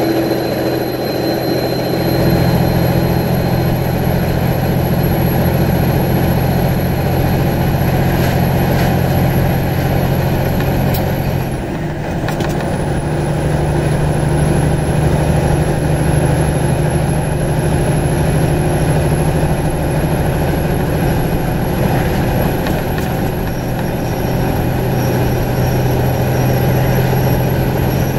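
Semi truck's diesel engine pulling under load, heard from inside the cab, with one gear change on its 18-speed manual transmission about twelve seconds in: the engine note drops off briefly, then picks up again in the next gear.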